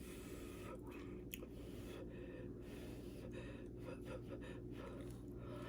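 Faint breathing and quiet chewing of a person eating hot, spicy seafood, with small wet mouth clicks, over a steady low hum.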